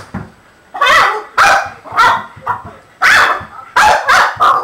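A Boston terrier barking repeatedly, about seven sharp barks in quick succession, at a cast-iron dog figure it is attacking.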